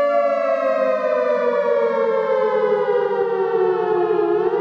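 A siren wailing: one loud, steady tone that slowly falls in pitch, then starts to rise again near the end.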